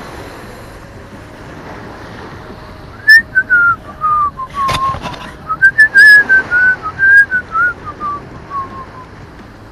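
A person whistling a tune close by: a string of short notes wandering up and down, starting about three seconds in and dying away near the end, with a few sharp clicks among them, over a steady hiss of wind and sea.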